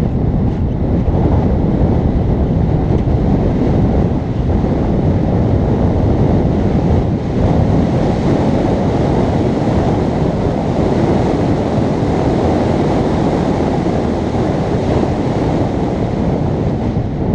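Wind noise from rushing airflow over the camera microphone of a paraglider in flight: a loud, steady rush with no breaks.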